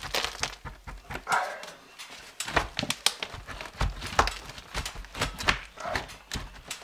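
Irregular clicks, taps and scraping as a wooden attic access panel, stuck shut (glued or nailed, he suspects), is worked loose by hand along its seam.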